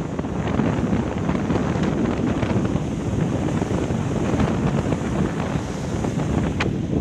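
Strong gusty wind buffeting the microphone over the wash of breaking surf, with a couple of sharp clicks near the end.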